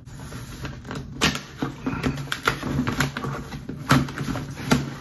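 Cardboard shipping box being torn open by hand: packing tape ripping and cardboard flaps tearing and scraping in an irregular run of sharp rips.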